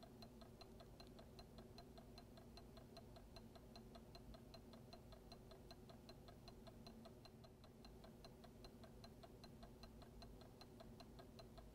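Magnetic stirrer running under a flask: faint, fast, even ticking, about six ticks a second, over a low steady hum.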